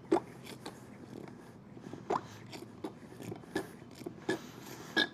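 Hand pump on an upside-down bottle of gear lube being worked, a sharp click or squelch with each stroke, irregularly about two a second, forcing lube into an outboard's lower unit.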